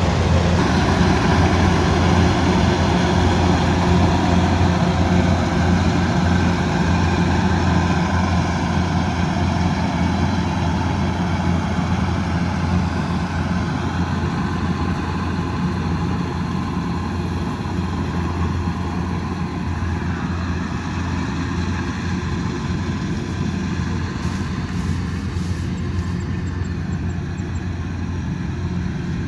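Kubota DC108X combine harvester's diesel engine running steadily at working speed, with a deep, even hum.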